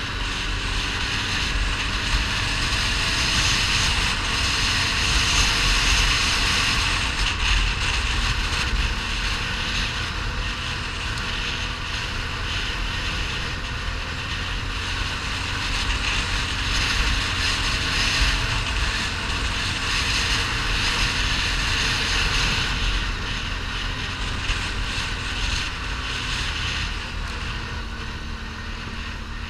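ATV engine running steadily under way on a gravel track, with tyre noise over loose stones and wind buffeting the microphone. The loudness swells a little and eases off near the end.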